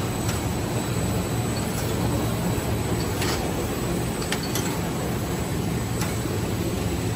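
Napkin packing machine running on a factory floor: a steady mechanical hum and whir, with a few light clicks scattered through it.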